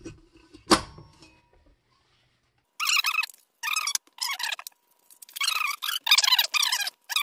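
A sharp metal clank about a second in as the stand mixer's whisk and stainless bowl are fitted. Then the foil wrapper of a block of cream cheese crackles in repeated bursts as it is peeled open.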